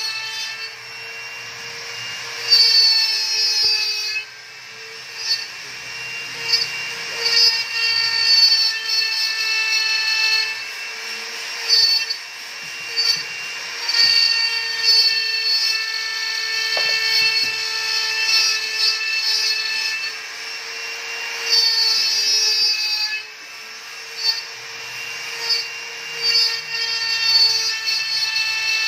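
Test run of a CNC router cutting plywood: the spindle holds a steady whine while the NEMA 23 stepper motors whine in changing pitches as the gantry moves. The stepper tones come in stretches of a few seconds, sometimes gliding up or down as the moves start and stop.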